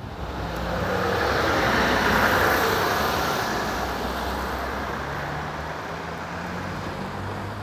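Road traffic: a city bus and cars drive past and away along the road, the engine and tyre noise swelling about two seconds in, then slowly fading.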